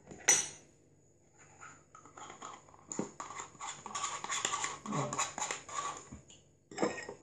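A thin plastic yogurt cup crinkling and crackling as it is squeezed to empty it into a glass blender jar. There is a sharp knock just after the start and more knocks near the end.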